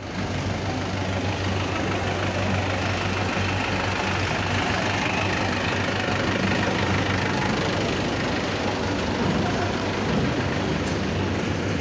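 Sugar mill machinery running: a steady, loud mechanical drone with a constant low hum.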